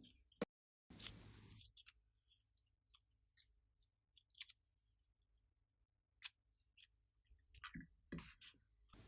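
Glossy slime being handled and mixed, giving scattered soft clicks and short crackling squishes, with a brief rustle about a second in.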